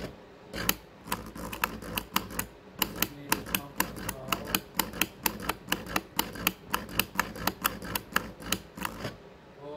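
GM LS2 electronic drive-by-wire throttle body working its blade with the key on and engine off: a run of quick, irregular clicks, about three or four a second, over a faint whine. The clicking stops near the end.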